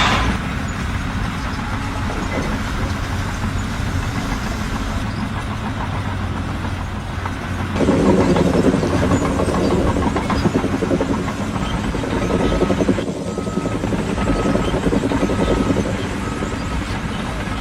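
Engine of a heavy construction machine running steadily, growing louder about eight seconds in, with a short beep repeating about once a second near the end.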